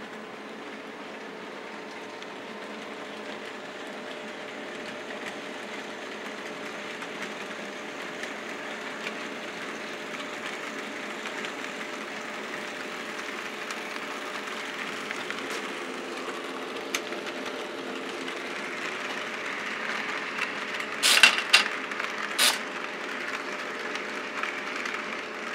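HO-scale model train running on the layout: steady electric motor hum with wheels rattling on the track, growing slowly louder. A few sharp clacks stand out about four-fifths of the way through.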